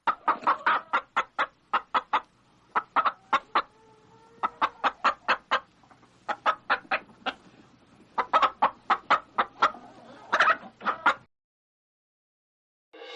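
Hen clucking: runs of short, quick clucks, about five a second, with brief pauses between runs, stopping a couple of seconds before music comes in.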